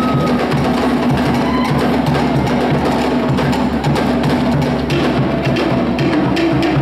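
Tahitian drumming for a dance: wooden slit drums (to'ere) beat a fast, driving rhythm over a deeper drum.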